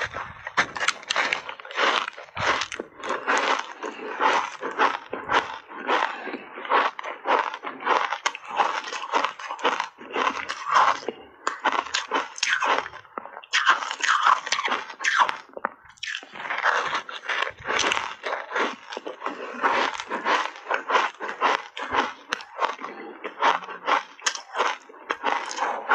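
Close-miked crunching and chewing of a refrozen ice bar coated in matcha powder: rapid, near-continuous sharp cracks as the hard ice is bitten and ground between the teeth, easing briefly about two-thirds of the way through.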